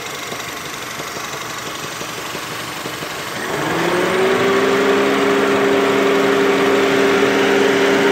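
Honda Civic engine idling. About three and a half seconds in, a louder steady hum rises in pitch and then holds. The owner hears a slight knock in this engine and takes it for a bad connecting rod.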